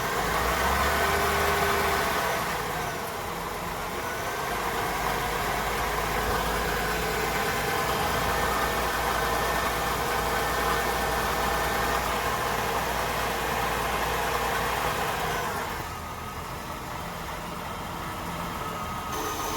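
2000 Honda Odyssey V6 engine running under light throttle: the engine note rises for a couple of seconds, holds, and drops back toward idle near the end. The noise it makes when accelerating comes from a failing water pump.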